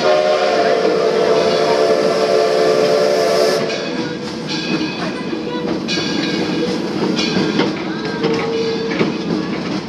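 Steam locomotive whistle blowing a long blast for a whistle post, cutting off sharply about three and a half seconds in, over the clatter of the train running.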